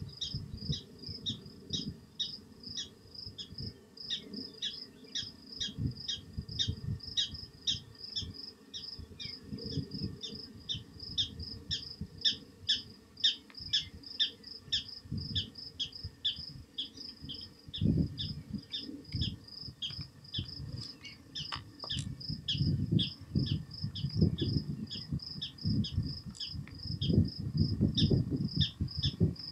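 High chirps repeated steadily, about two a second, with wind gusting on the microphone, strongest near the end.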